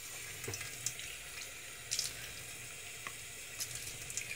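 A kitchen faucet is turned on and water runs in a steady stream into the sink basin, with a few light clicks and knocks as things are handled under it.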